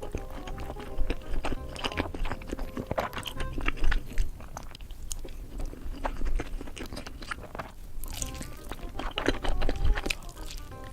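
Close-miked eating: repeated crunchy bites and chewing, with a loud crunch about four seconds in and a quick run of crunches near the end.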